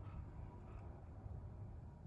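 Faint steady low hum of room tone.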